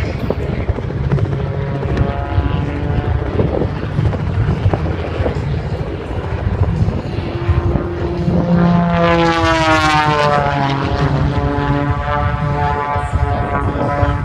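Propeller airplane flying past: a steady engine drone that swells to its loudest about nine to ten seconds in, where its pitch drops as it goes by.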